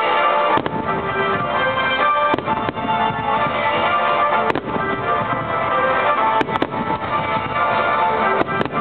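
Fireworks shells bursting with sharp bangs, about eight of them, several in quick pairs, over loud steady music that accompanies the display.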